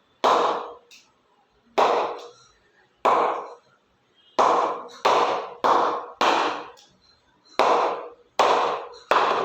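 Kashmir willow cricket bat struck repeatedly by a leather cricket ball, about ten sharp hits at uneven spacing. Each hit rings briefly with the bat's 'ping', the wooden ring that shows how the bat's willow responds.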